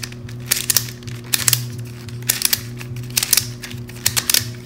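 Plastic Duo Pyraminx puzzle being turned for its first turns: quick, irregular clusters of clicks and clacks from its pieces.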